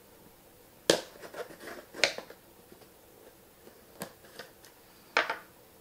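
Cardboard shipping box being cut and pulled open with a kitchen knife: four separate sharp cracks of cardboard and packing tape, the loudest about a second in.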